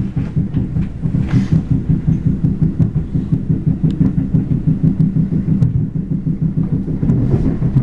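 Train bogie making an abnormal low clunking ('gotogoto'), a fast, even run of thumps about four or five a second over the rumble of the running train.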